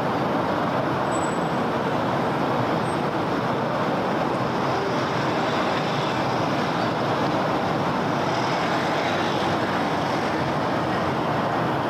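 Steady wash of city road traffic: a continuous, even hum of passing cars and other vehicles, with no single vehicle or horn standing out.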